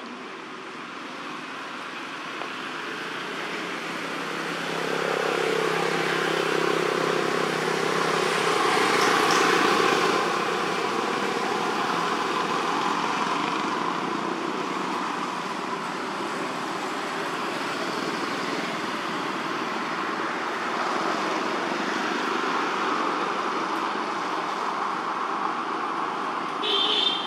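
Steady motor-vehicle noise that swells to its loudest about nine to ten seconds in, then holds level, with a brief high-pitched squeak near the end.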